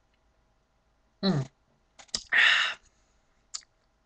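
A man's short hum, then a mouth click and a breathy exhale, with another small click near the end.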